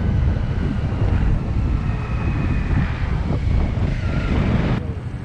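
Steady low rumble of a moving vehicle with wind buffeting the microphone; the sound changes abruptly near the end.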